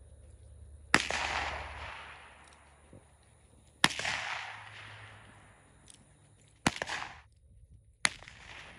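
.22 handgun fired four times, the first three shots about three seconds apart and the last coming quickly after. Each shot is a sharp crack followed by a fading echo.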